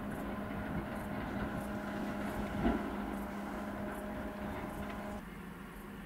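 Steady distant mechanical hum with several held tones, like an engine running far off, over a soft background hiss; it breaks off abruptly about five seconds in.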